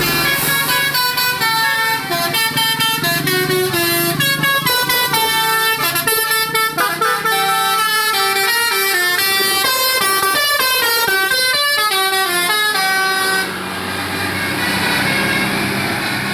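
Bus telolet horn, a multi-tone musical air horn (tagged Basuri), playing a quick melody of stepping notes for about thirteen seconds, then giving way to a quieter, steady sound.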